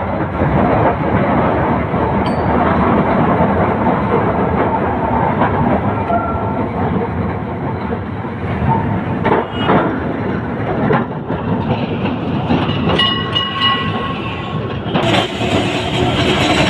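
Calcutta Tramways tramcar running along its rails, a steady loud rumble and clatter heard from inside the car. A few sharp knocks come about halfway through, and a short pitched tone sounds near the end.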